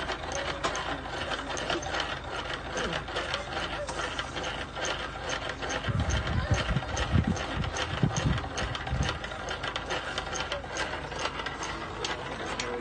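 Rapid, irregular clicking from a hand-worked mechanism, with a few low thumps about six to nine seconds in.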